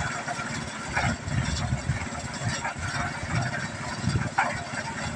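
Cement mixer running: a steady low motor drone with irregular clattering on top.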